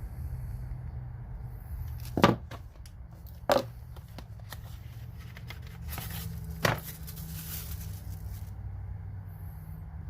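Metal hand tools being handled and set down on a hard surface: three sharp knocks, with a short rustle after the third, over a steady low room hum.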